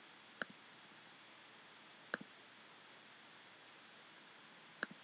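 Three sharp computer mouse clicks, spaced about two seconds apart, each followed at once by a fainter tick as the button is released, over a faint steady hiss.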